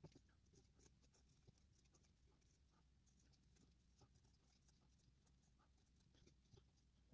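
Very faint scratching and light tapping of a pencil drawing lines around a small piece of carved wood, against near silence.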